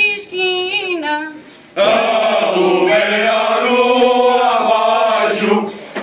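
Male choir singing cante alentejano, unaccompanied. A single high voice with vibrato sings a line, then a little under two seconds in the full group of men's voices comes in together, louder, with slow, held notes.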